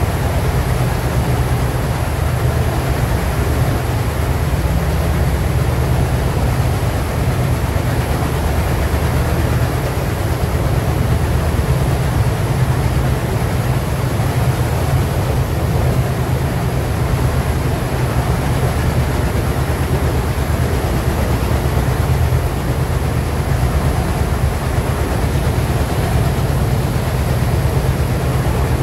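Twin ALCo WDG-3A diesel locomotives, each with a 16-cylinder 251 engine, chugging steadily as they haul the train, heard from a coach door along with the steady rumble of wheels on rail.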